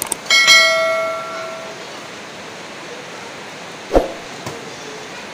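A metal part of the rack being unpacked is struck and clanks, then rings for about a second and a half before fading. A dull thump follows about four seconds in. Under both runs the steady hiss of heavy rain.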